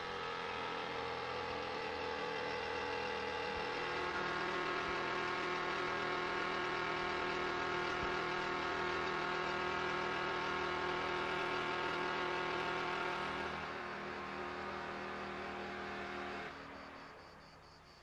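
An engine running steadily, starting suddenly, easing off near the end and fading away.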